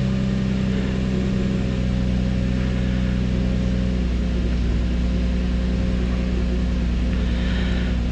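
Infiniti G35's 3.5-litre V6 idling steadily with all injectors still firing, the baseline sound before an injector balance test cuts individual injectors.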